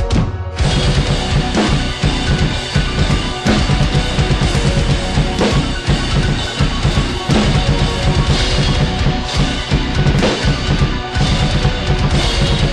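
Drum kit played hard and fast over a loud, heavy backing track, with dense bass drum strokes and cymbals; the full beat comes in about half a second in.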